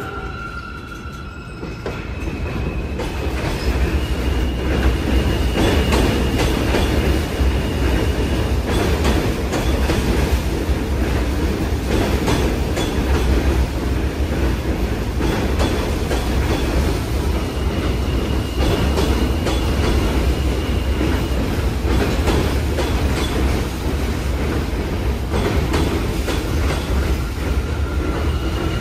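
An R160A subway train pulling out of an elevated station and rolling past close by. The rumble builds over the first few seconds and then holds steady, with scattered clicks of wheels over rail joints. A thin, high wheel squeal comes and goes several times.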